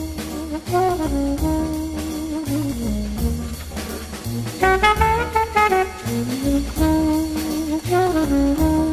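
Jazz background music with brass instruments playing a melody over a bass line and a steady beat.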